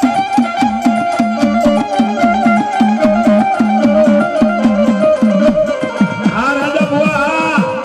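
Gujarati folk devotional music: a harmonium plays a stepping melody over a steady, fast beat on a hand drum, with no singing in the first part.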